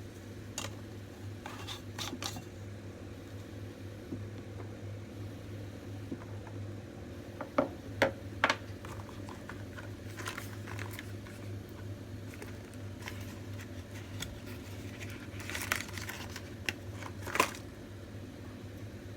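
Scattered sharp clicks and knocks, like small objects being handled and set down, over a steady low hum. There is a quick cluster of three about eight seconds in and two more near the end.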